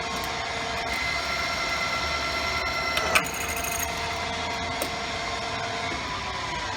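Bulldog drill press running, its motor and spindle giving a steady whine, with one sharp click about three seconds in.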